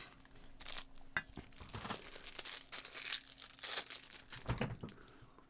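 Thin plastic packaging crinkling and tearing as it is unwrapped by hand, an irregular run of crackles and rustles that dies away near the end.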